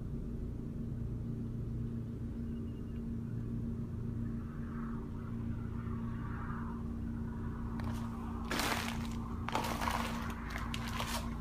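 A low, steady rumble with a constant hum underneath. From about eight seconds in come a few irregular scuffs and crunches of footsteps on a debris-strewn floor.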